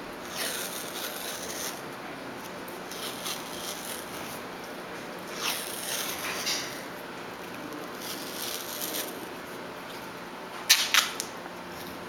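White athletic tape being pulled off the roll and wrapped around a wrist: a series of short, scratchy rips, with a sharper, louder rip near the end.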